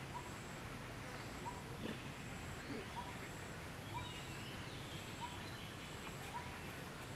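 Forest ambience: a short rising chirp repeated about once a second, likely a small animal's call, over a steady outdoor hiss with faint, regularly repeating high-pitched buzzing pulses typical of insects.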